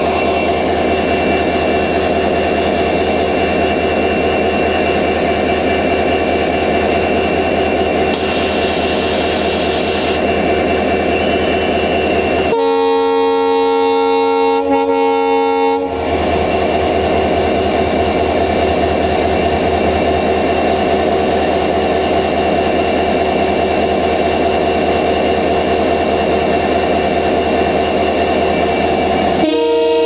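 WDP4D diesel locomotive's EMD two-stroke engine running steadily at standstill. About twelve seconds in, its horn gives one multi-tone blast of roughly three seconds, and near the end the horn starts to sound again. A hiss of about two seconds comes around eight seconds in.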